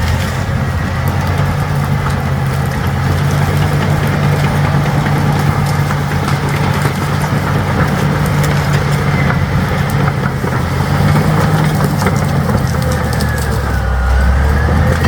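Large 200 hp crawler bulldozer's diesel engine running steadily as it tracks along a narrow wooded trail, with scattered clicks and cracks over the drone.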